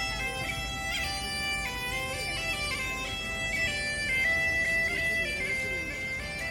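Scottish Highland bagpipe playing: the chanter melody moves in distinct stepped notes, with quick grace-note flicks between some of them, over the steady, unbroken drone.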